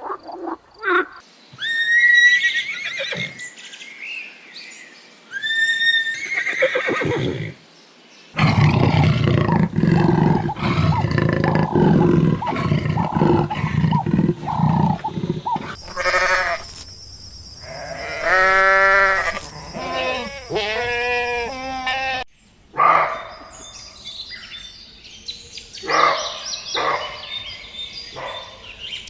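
A run of different farm animal calls in separate recordings cut one after another, with abrupt changes about 8, 16 and 22 seconds in.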